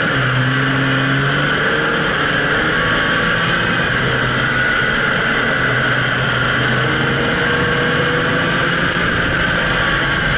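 Jeep Wrangler Rubicon's 3.6-litre V6 running under load as it drives over sand dunes, heard from low under the front suspension: a steady engine note under a constant rush of noise.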